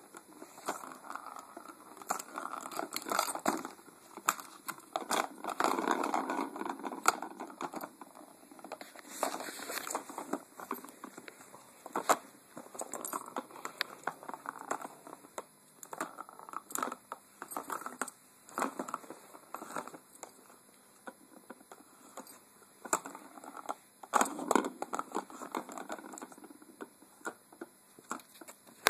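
Cardigan Welsh Corgi puppy pawing and mouthing a plastic cat track-ball toy: irregular plastic clicks and knocks, with stretches of rustling.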